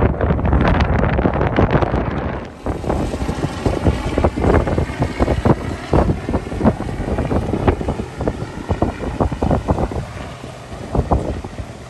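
Wind buffeting the microphone in irregular gusts, loudest in the first couple of seconds, with a helicopter flying overhead faintly heard underneath.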